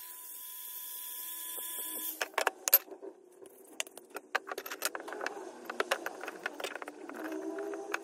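Small cordless angle grinder whining steadily, then cutting off about two seconds in. A string of metallic clinks and knocks follows as cut metal rods are handled and laid on a metal workbench, the loudest a sharp clank a little under three seconds in.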